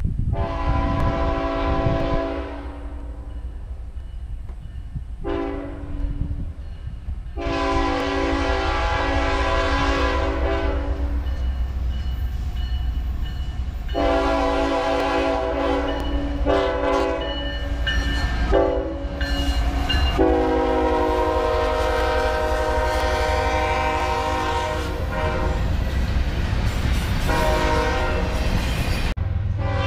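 Freight locomotive's multi-chime air horn sounding a long series of blasts as the train approaches and passes. Several tones sound together as a chord; the blasts are of varying length, from about two seconds to several seconds, and the longest comes in the second half. A low locomotive rumble runs beneath, joined near the end by the noise of the container cars rolling past.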